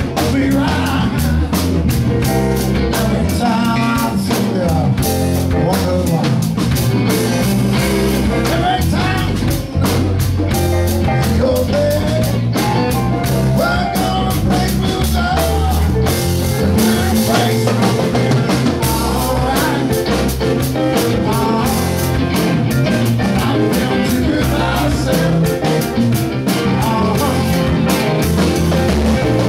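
Live band playing, with guitar and a drum kit keeping a steady beat.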